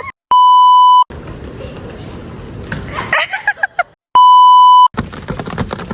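Two edited-in electronic bleeps, each a steady pure tone lasting under a second and starting and stopping abruptly, about four seconds apart. A short burst of voice comes between them.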